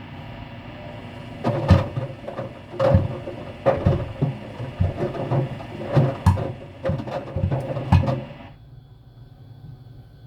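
GE washer-dryer running with a steady hiss and hum, while irregular knocks come from the vacuum-cleaner parts tumbling in the drum. The hiss cuts off suddenly near the end and the low hum carries on.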